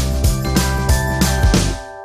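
Background music with a steady drum beat over sustained chords. Near the end the beat stops and a held chord rings on more quietly.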